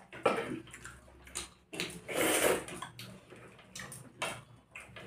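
Mealtime handling sounds: a stainless steel bowl being tipped and set down on the table, and hands squelching through rice and curry. There are a few short knocks, the loudest just after the start, and a longer noisy burst about two seconds in.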